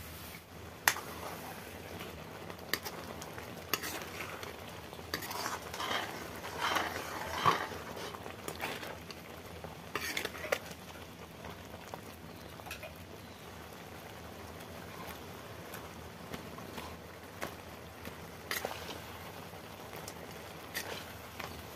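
Thick masala gravy bubbling and sizzling in an iron kadai, with a metal spatula scraping and clinking against the pan in spells of stirring, busiest a quarter to halfway in and again near the end.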